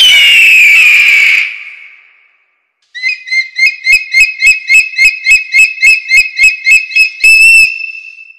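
Bird of prey calls: a long, hoarse scream that falls in pitch and fades. After a short pause comes a rapid, even series of short, high piping calls, about four a second, which stops shortly before the end.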